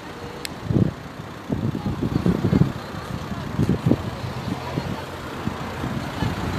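Road traffic at close range: a car rolling slowly past, its engine and tyres over a steady traffic hum, with irregular low thumps scattered throughout.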